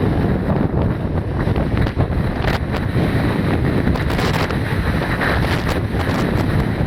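Strong storm wind buffeting the microphone over the sound of rough sea surf, a dense steady rumble with short gusty flutters.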